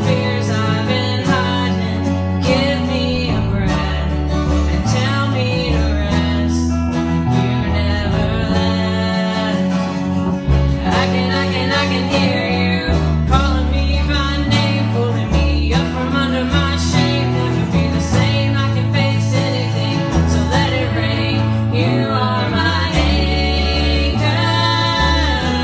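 Live worship band playing a contemporary Christian rock ballad: female lead vocals over strummed acoustic guitars and electric bass.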